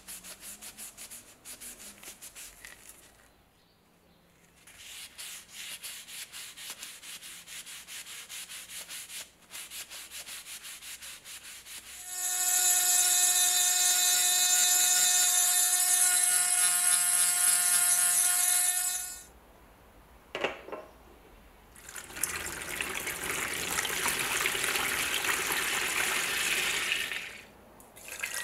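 A cloth rubbing over a wooden knife handle in stretches, then a rotary tool with a small abrasive cone grinding rust off a steel blade for about seven seconds, a steady high whine that is the loudest part. Near the end, after a pause and a click, a steady hissing noise for about five seconds.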